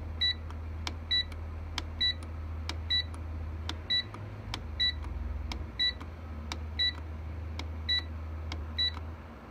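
Centurion RT3000 UPS's select button pressed about a dozen times, roughly once a second. Each press gives a click and a short, high key beep as the front-panel menu steps forward, over a steady low hum.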